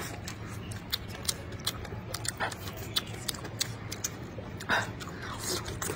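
Close-miked eating sounds: chewing with many small, irregular wet mouth clicks and smacks, over a low steady hum.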